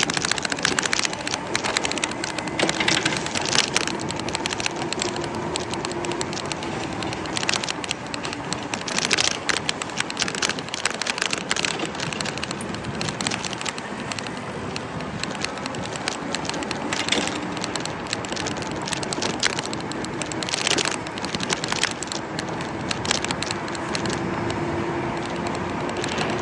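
A motor vehicle running with a steady hum and noise, and scattered light clicks and rattles.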